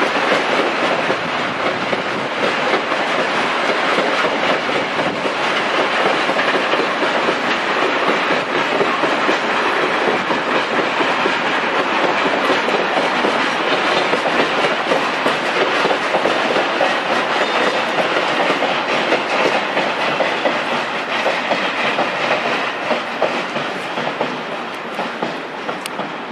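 Loaded freight train of high-sided Eaos open wagons rolling past, a steady rumbling clickety-clack of wheels over rail joints. The 6Dg diesel locomotive banking at the rear passes about halfway through, and the noise fades over the last few seconds as the train draws away.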